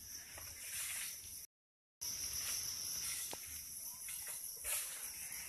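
Quiet outdoor ambience with a steady high-pitched hiss of insects and a few faint soft taps. The sound drops out completely for about half a second near the start.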